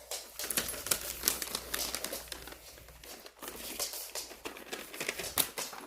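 Dog-treat packet crinkling and rustling as a treat is taken out, a dense run of small crackles.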